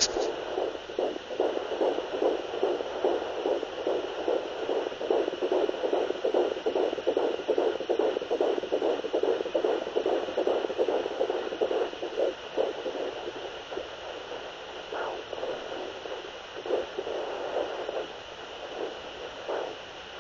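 Fetal heartbeat picked up by a Doppler monitor: fast, even whooshing pulses, a little over two a second, over steady hiss. After about twelve seconds the beat fades and only scattered pulses remain.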